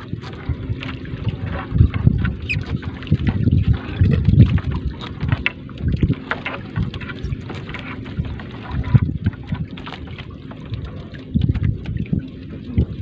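Wet three-ply trammel net being hauled by hand over a wooden boat's gunwale: irregular knocks, scrapes and rustles of the net on the wood, with wind buffeting the microphone in uneven gusts.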